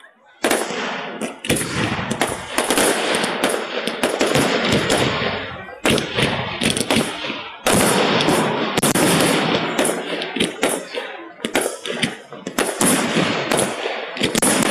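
Aerial fireworks shells bursting in a dense, rapid barrage of bangs and crackles, with a sudden louder burst about eight seconds in. The sound is heavily compressed by a phone's microphone.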